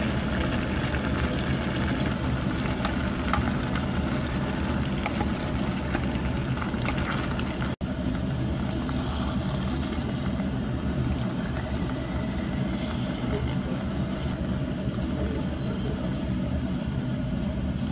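A steady mechanical hum, like a motor running, with a few faint clicks over it. It breaks off for an instant about eight seconds in.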